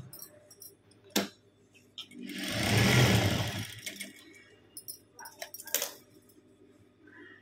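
Industrial single-needle sewing machine running a short burst of stitching near the middle, swelling up and dying away over about a second and a half. A sharp click comes about a second in, and a few light clicks follow a couple of seconds later.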